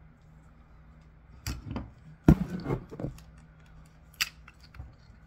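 Three Daiwa spinning reels being handled together, giving a few sharp plastic-and-metal clicks and knocks. The loudest comes a little before halfway, followed by a short run of knocks, then one more sharp click near the end.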